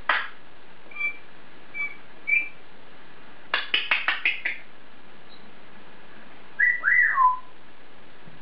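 African grey parrot whistling and chirping: a few short high chirps, then a quick run of about seven clicks, and near the end a whistle that rises and then drops in pitch.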